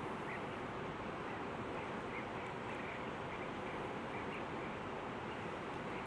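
Steady rushing of a river, with faint short bird chirps now and then.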